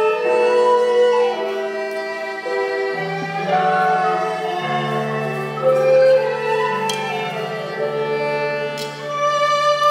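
Live ensemble music: a high melody with sliding notes over steady held low notes.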